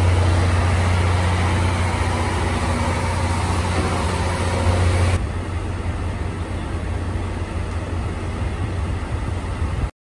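A DE10 diesel-hydraulic locomotive's V12 diesel engine running with a steady low hum, heard close beside the locomotive. About five seconds in it drops abruptly to a quieter, more distant level, and it cuts off suddenly just before the end.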